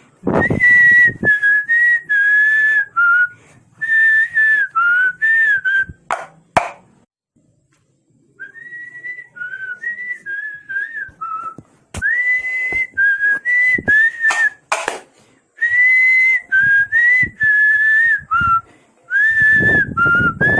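A person whistling a melody, note by note with short breaks between phrases. There is a pause of about a second and a half near the middle, then the whistling resumes softer and grows louder again. A low thud or handling noise comes at the start and near the end.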